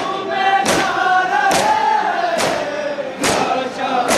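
A crowd of men beating their chests in unison in Muharram matam, a sharp slap landing a little more often than once a second, while many voices chant along in a lament.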